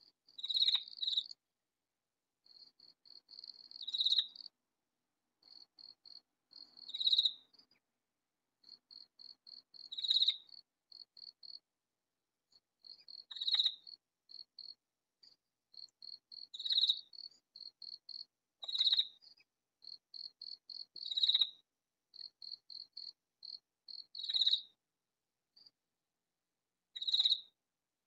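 Katydid calling: a loud, high-pitched rasping call repeated every two to three seconds, each one swelling up to a sharp end, with softer runs of quick short pulses in between.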